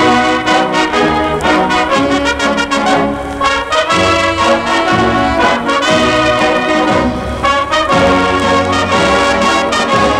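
Military brass band playing a hymn in march style, trumpets and trombones to the fore over a steady beat.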